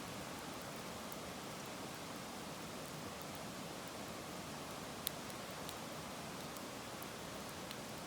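Wood fire burning with a steady hiss and a few sharp crackles, the loudest about five seconds in.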